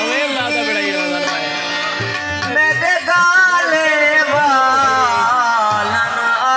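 A male voice sings long, wavering notes over harmonium and tabla, with tabla strokes coming in clusters.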